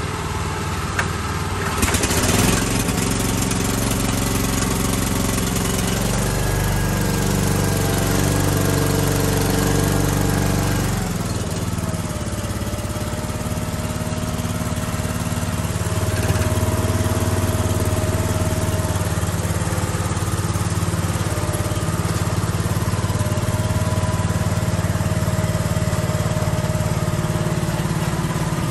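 Engine of a red tracked two-stage snowblower running steadily. Its pitch steps up about six seconds in and drops back about five seconds later while the machine is driven on its tracks.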